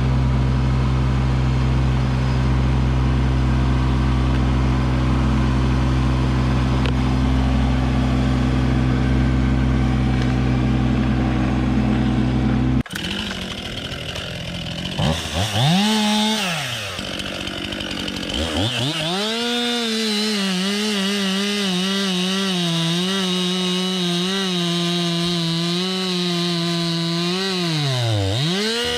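Kubota LX2610 compact tractor's diesel engine running steadily. After an abrupt cut, a STIHL MS 261 chainsaw revs up and cuts wood, its pitch sagging and recovering under load, dropping briefly to idle partway through before cutting again.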